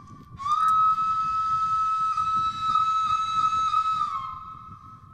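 Background music: a flute-like wind instrument holding one long note, which bends down just after four seconds in.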